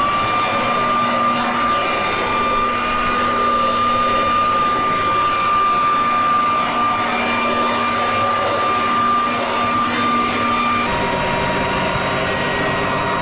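Vacuum cleaner running with a steady high whine while sucking up a wasp nest and its wasps. About eleven seconds in, the whine drops slightly in pitch.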